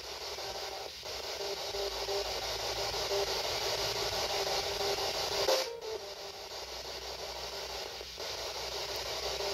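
Spirit box, a radio sweeping through stations, giving out a steady hiss of static. It briefly cuts out about a second in and again near the end, with a short louder blip and dropout a little past halfway.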